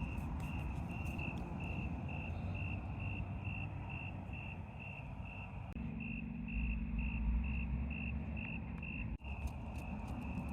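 A cricket chirping in a steady, even rhythm, about two chirps a second, over a low background rumble.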